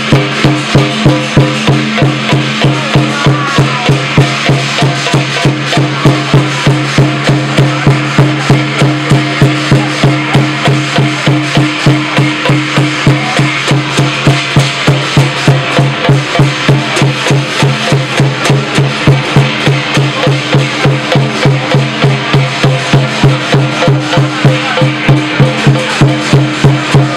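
Lion dance percussion: a Chinese drum beaten steadily at about three strokes a second, with cymbals and gong ringing along.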